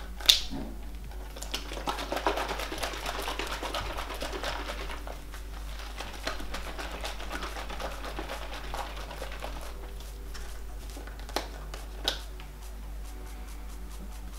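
Hands handling an oat milk carton and its plastic screw cap: a sharp click just after the start, a few seconds of scratchy rustling, then scattered small clicks with two more clear ones near the end.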